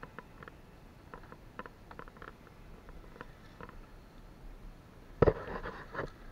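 Scattered small clicks and rustles from hands handling a Traxxas RC truck in dry grass. About five seconds in comes a sudden thump, the loudest sound, followed by a short scuffle as the truck is set down on the dirt.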